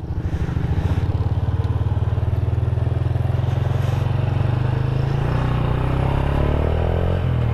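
Honda Astrea Grand's small single-cylinder four-stroke engine pulling away under throttle through a bored-out (debaffled) Honda Revo muffler, giving a deep, mellow bass exhaust note. The revs climb steadily over the second half and fall away just before the end. Heard muffled from a mic inside the rider's helmet.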